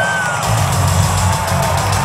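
Live hard-rock band playing loudly through an arena PA. About half a second in, heavy drums and bass kick in under sustained sung or guitar notes.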